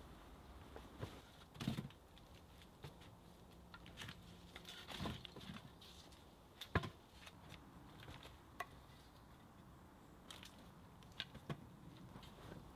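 Faint, scattered knocks and clicks of wood being handled while working on a log-and-pole structure, with a sharp knock about seven seconds in standing out above the rest.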